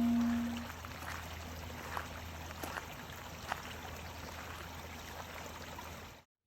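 Running water, a steady trickle with small splashes and drips, that cuts off suddenly about six seconds in. A singing bowl's ringing tone fades out in the first half second.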